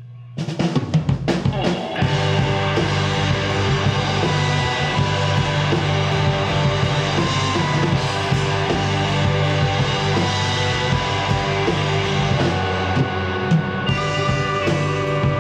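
Rock band starting a song live about half a second in: a few hard hits on the drums and guitars, then two electric guitars, electric bass and drum kit playing a steady, dense instrumental passage.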